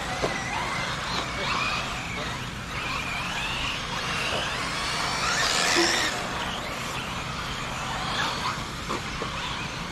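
Several radio-controlled off-road race cars running around a dirt track, their motors whining up and down in pitch as they accelerate and brake through the corners, briefly louder about halfway through.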